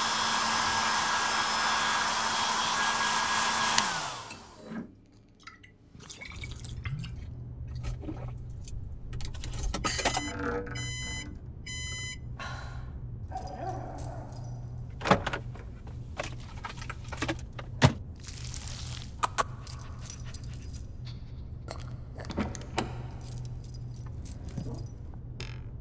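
A hair dryer running, switched off about four seconds in, its pitch falling as it winds down. After it comes a low steady hum with scattered sharp clicks and knocks, the loudest a little past the middle. Around the middle there is a quick run of short, evenly spaced electronic beeps from a breathalyzer.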